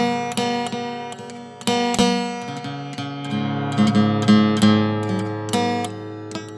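Background music: an acoustic guitar playing plucked and strummed notes, each note starting sharply and dying away.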